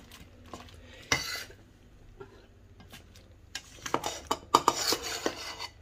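Plastic slotted spatula stirring spiced plantain cubes in a stainless steel bowl, clinking and scraping against the metal. There is one knock about a second in, then a busier run of scrapes and knocks over the second half.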